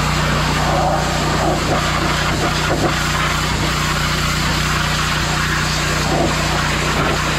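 Pressure washer running steadily, a constant motor hum under the hiss of the water spray on the tractor.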